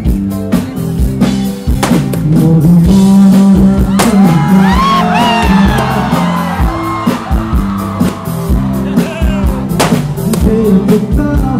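A rock band playing live: drum kit beating steadily under a repeating bass line and guitar, with singing. A bending melody line rides over the middle few seconds.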